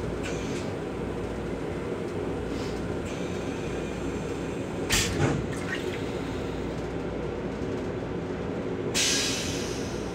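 Stainless-steel toilet in a Metro-North M7 railcar flushing over the steady rumble of the moving train. A short sharp burst with two quick peaks comes about halfway through, then a hiss starts near the end and fades.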